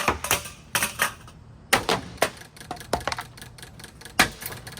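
Parts of a ceiling fan clattering: a quick, irregular run of sharp knocks and clicks, the loudest at the very start, a little under two seconds in and near the end.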